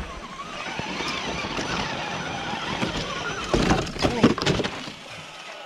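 Radio-controlled scale crawler trucks running over rough trail ground, their motors and drivetrains going steadily. A cluster of sharp knocks and scrapes comes about three and a half to four and a half seconds in.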